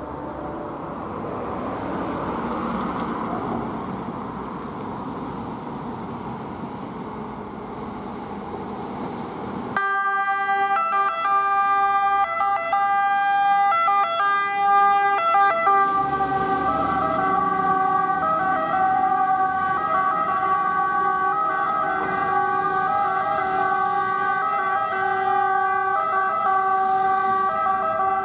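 Road and engine noise for about the first ten seconds, then the two-tone siren of a MAN 18.320 fire tanker switches on suddenly and sounds without break, alternating between two pitches, with the truck's diesel engine underneath as it pulls away.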